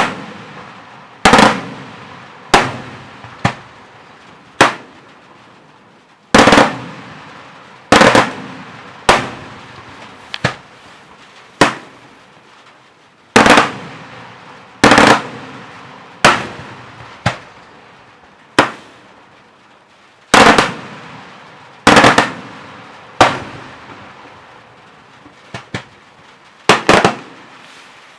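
Daytime fireworks going off: about twenty loud single bangs, one every second or two, each trailing away in a short echo.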